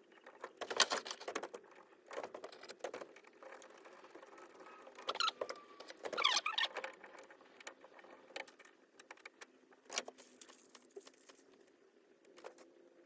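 Parts and packaging being handled while a benchtop drill press is unboxed: irregular rustling, light clicks and clinks, the loudest bursts about a second in, around five to six seconds in, and near ten seconds.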